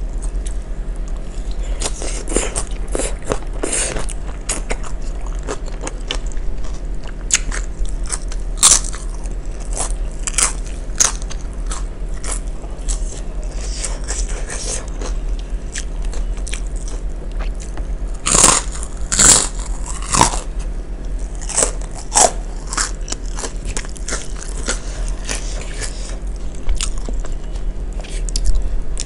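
Close-miked chewing and biting of crunchy raw vegetables and yellow crackers in peanut sauce, a string of wet crunches with the loudest bites about eighteen to twenty seconds in. A steady low hum runs underneath.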